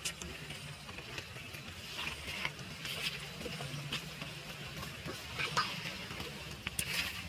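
Faint outdoor ambience: a low steady hum with scattered short, high squeaks and light crackles.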